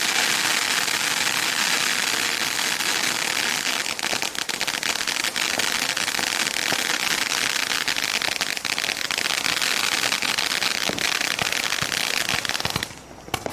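Consumer firework cake firing: a continuous loud hiss with dense, rapid crackling pops from about four seconds in, cutting off suddenly near the end, with a few stray pops after.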